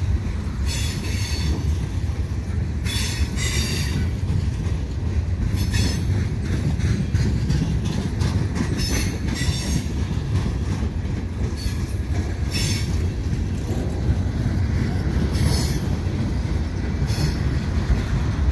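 Mixed freight cars rolling past at speed with a steady low rumble. Short, high, hissing screeches from the wheels come every second or few.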